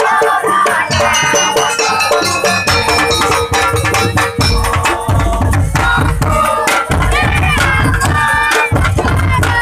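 Group music playing: shaken rattles and drums together with several sustained melodic notes, with a heavier low drum beat from about halfway through.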